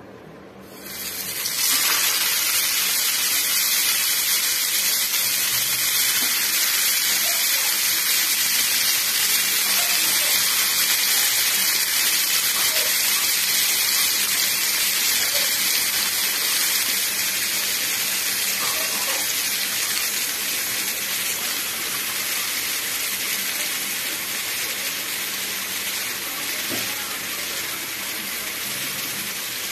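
Tandoori-marinated chicken drumsticks sizzling in hot oil on a grill pan, a loud steady hiss that starts about a second in as the first piece goes down. The sizzle fades a little over the second half.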